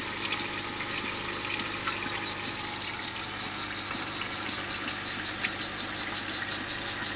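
Water from a terrarium's rain system falling in thin streams and splashing steadily onto wet leaves, an even trickle and patter of drops.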